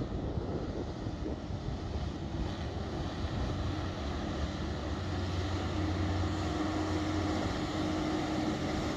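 Passenger hovercraft coming in off the water and up onto a concrete slipway, its engines and ducted propellers running with a steady noise that grows a little louder as it nears. A low hum strengthens about halfway through, and a steady higher tone joins it for the last few seconds.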